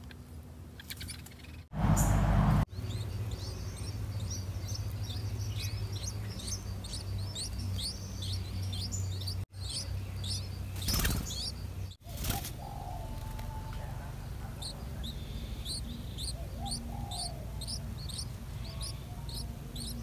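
Yellow-vented bulbul nestlings begging for food: long runs of short, high chirps, about two a second, as the parent feeds them at the nest. A loud burst of noise lasting about a second comes about two seconds in, over a steady low hum.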